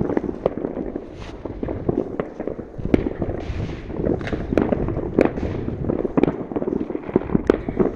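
New Year's fireworks going off across a town: a continuous, irregular crackle of many bangs and pops, several a second, some sharper and louder than the rest, over a steady rumble of distant explosions.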